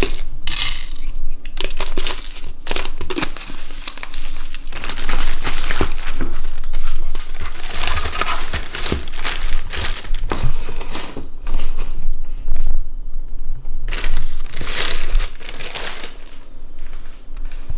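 Irregular crinkling and crumpling as something crinkly is handled and squeezed, broken by scattered short clicks and knocks.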